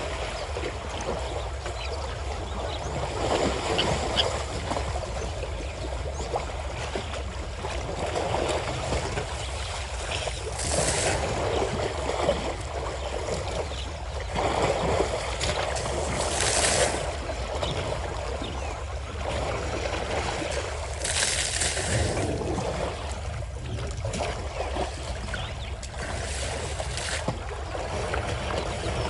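African elephants wading and wallowing in a waterhole: steady sloshing and splashing of water, with a few sharper splashes now and then as the calves roll and thrash in the shallows.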